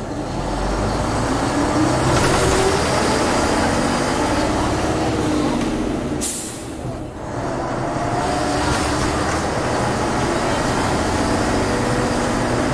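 Diesel engine of a DAF MB 200 bus with a Wilson gearbox pulling under way, its pitch rising. About six seconds in there is a short hiss of air and a brief dip in engine sound as a gear is changed, then the engine pulls again.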